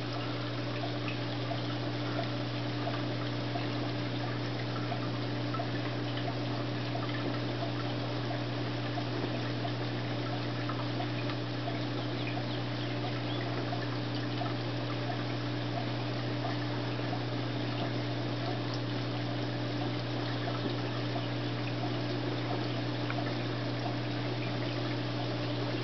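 Reef aquarium's equipment running: steady trickling and splashing of circulating water with a constant low hum from the pumps.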